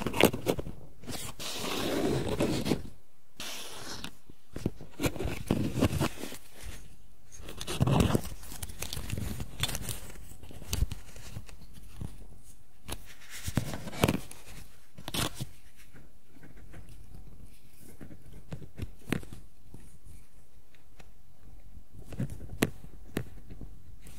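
Hard grey plastic miniature parts handled close to the microphone, a Necron Plasmancer kit being fitted together. Fingers rustle and scrape on the plastic, with a longer rustle about two seconds in and scattered sharp clicks as pieces are pressed into place.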